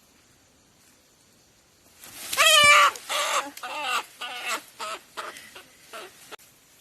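Pheasant squawking. One loud harsh call about two seconds in, then a run of shorter cackling calls, about two a second, that grow quieter.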